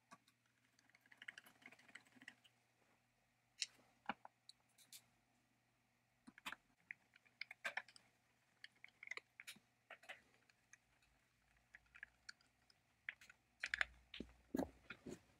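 Faint, sparse metal clicks and short scrapes of a screwdriver turning small screws in a chainsaw's handle and trigger-switch housing, with a quick cluster of louder clicks near the end.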